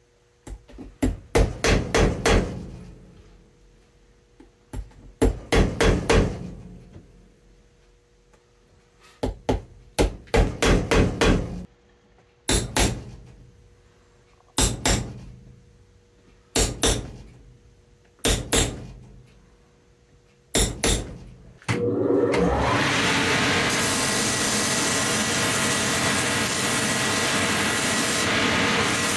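Hammer striking the heel of a boot held on a shoe last, first in quick runs of several blows, then single and paired blows every couple of seconds, as a heel is attached. About 22 seconds in, a shoe finishing machine starts up and runs steadily, its sanding wheel grinding the rubber sole.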